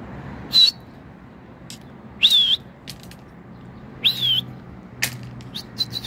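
A person whistling to pigeons in flight: three loud, high whistles a little under two seconds apart, the first a short flick and the other two longer notes that swoop up and back down.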